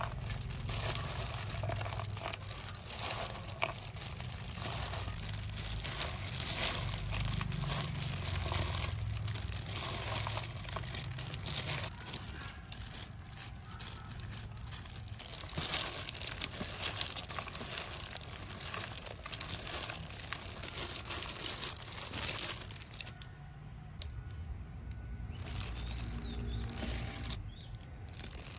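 Irregular crinkling, crunching and tearing of ingredients handled by hand during food preparation, a dense run of small clicks and rustles over a low hum, changing abruptly a few times near the end.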